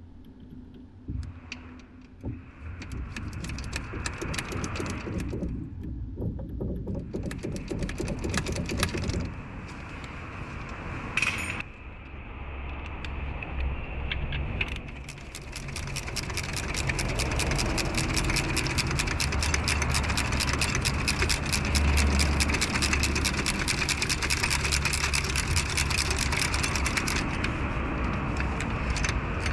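Toyota Wish engine bay: the engine running with a fast, continuous metallic rattling and clicking, the abnormal noise from the engine room. The sound grows louder and heavier about halfway through.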